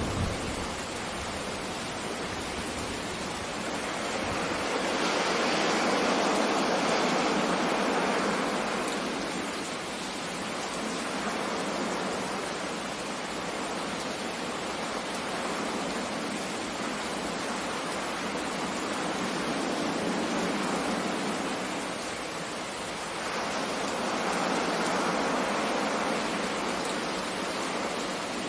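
Steady rushing of rain and sea surf that swells and eases slowly, most strongly twice. The last of a thunder rumble dies away at the very start.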